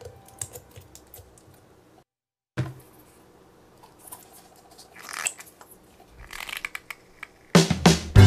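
Small plastic clicks and taps from a syringe being handled, with a brief total silence about two seconds in. Music comes back in loudly near the end.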